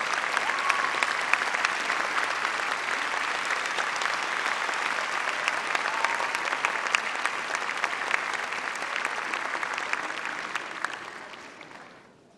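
Large audience applauding, a dense, steady clatter of many hands clapping that dies away about eleven seconds in.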